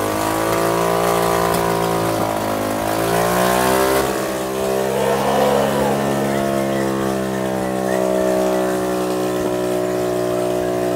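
Two-stroke motorbike engine rigged as a winch to haul a fish net. It revs, its pitch rising and falling over the first few seconds, then runs at a steady speed.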